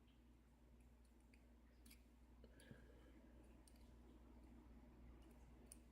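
Near silence with a few faint, sharp clicks of small brass lock pins being handled during inspection.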